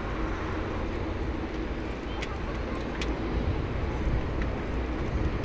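Jet airliner engines running with a steady low rumble and a faint hum.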